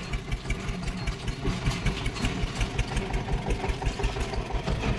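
Heavy diesel vehicle engine idling steadily, with an even pulse.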